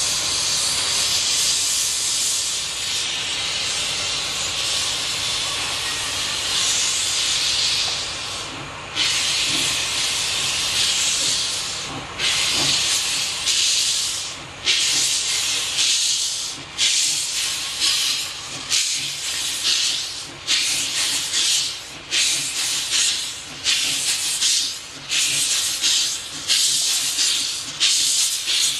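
Steam locomotive 93.1420 starting a train: a long steady hiss of escaping steam, then from about nine seconds in the exhaust beats begin, slow at first and coming closer together as it gathers speed. Steam hisses from the open cylinder drain cocks.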